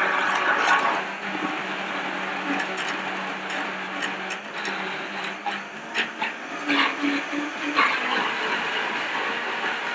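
Vitamix high-powered blender running at speed, puréeing roasted squash with a little stock into a smooth soup base. It makes a steady dense whir, loudest in the first second, with scattered short knocks through it.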